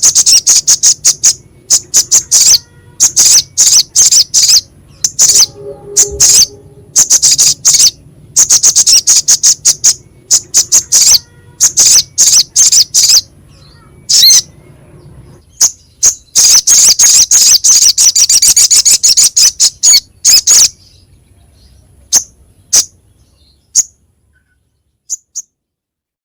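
Little spiderhunter (sogok ontong) singing its harsh, rapid chattering song: fast runs of sharp high notes in short bursts, one longer run about two-thirds of the way through, then a few single notes near the end.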